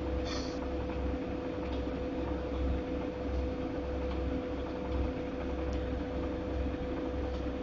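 Godrej fully automatic washing machine running, a steady hum over a low rumble that swells and fades unevenly; this is the noise the owner is complaining of.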